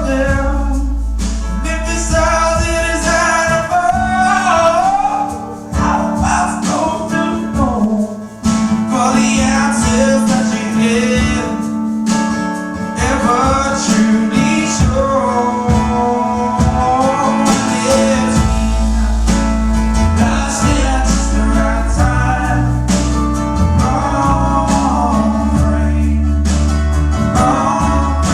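Live song at a sound check: a man sings a drawn-out melody over guitar accompaniment.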